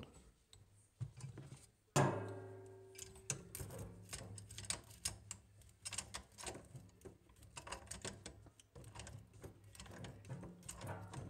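Small irregular clicks and scrapes of pliers working the nut of a braided stainless supply line as it is tightened onto a shut-off valve, with a sharp metallic clink about two seconds in that rings briefly, over a low steady hum.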